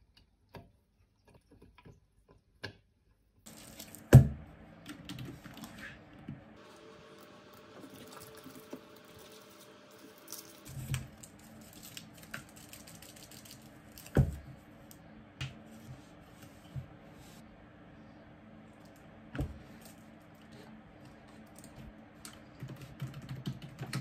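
Scattered small clicks and ticks of objects being handled, with a few sharp knocks, the loudest about four seconds in. A steady low hum starts a few seconds in and runs under them.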